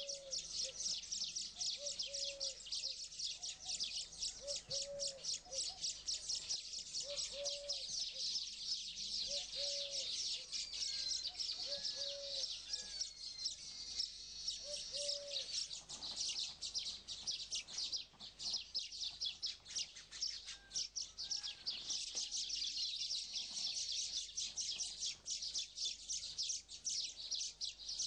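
A baya weaver colony chattering: a dense, continuous mass of rapid high chirps from many small birds. Through the first half a lower, short arched call repeats about every two seconds.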